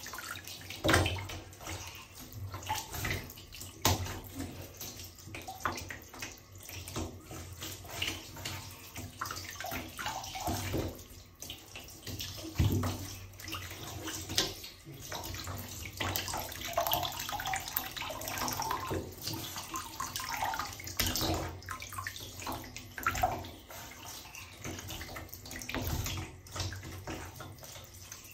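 Asian small-clawed otter splashing and paddling in shallow bathwater. The water sloshes against the tub walls with frequent, irregular sharp splashes.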